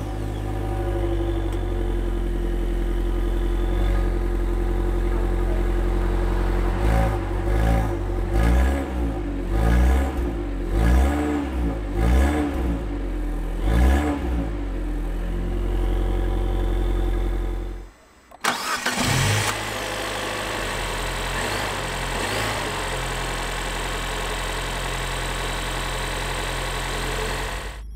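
Abarth F595C's 1368 cc turbocharged four-cylinder petrol engine idling, then revved in a series of quick blips, each rising and falling, before settling back to idle. About eighteen seconds in the sound cuts out briefly, then the engine starts again and idles steadily.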